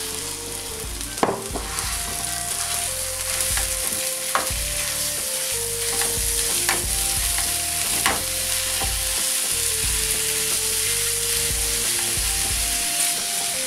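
Raw beef mince frying and sizzling in a non-stick frying pan with fried onion and carrot, stirred and broken up with a plastic slotted spatula. A steady sizzle, with a few sharp knocks of the spatula on the pan, about a second in and again around four and eight seconds in.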